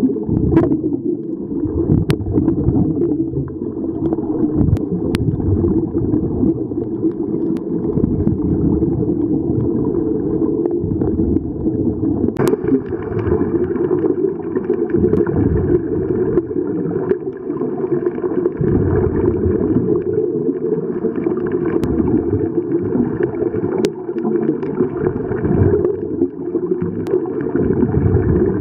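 Muffled underwater rumble with gurgling from scuba divers' exhaled bubbles, heard with the microphone underwater. A fainter, higher hiss joins suddenly about twelve seconds in.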